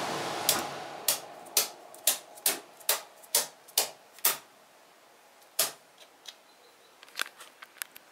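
Miniature circuit breakers on a truck's power distribution panel snapped over one after another by hand, sharp clicks about two a second, with a few fainter clicks near the end. A steady air-conditioning and fan noise winds down over the first second or so.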